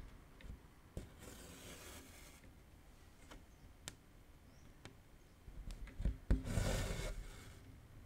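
Cotton embroidery floss drawn through taut 18-count cross-stitch fabric in a hoop: two swishes of thread pulling through, one about a second in and a longer, louder one near the end, with light ticks of the needle piercing the fabric.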